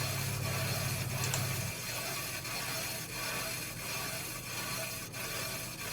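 Brake lathe cutting the inside of a 1958 Volkswagen Beetle brake drum: the tool bit scrapes steadily across the iron at a very slow feed. A low hum under the scraping drops away about two seconds in.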